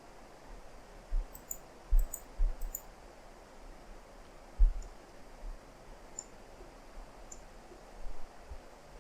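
Computer mouse clicking: a quick run of clicks in the first three seconds, then single clicks a second or more apart, with several dull low thuds over faint room hiss.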